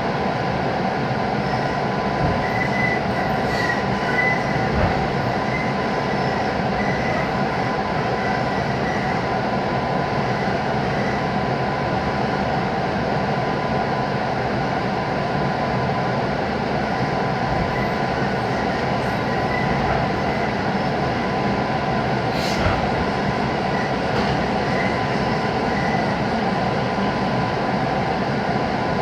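221 series electric train running at restricted slow speed, heard from inside the carriage: a steady rumble of wheels on rail with a thin steady whine, a few faint squeals and a couple of sharp clicks.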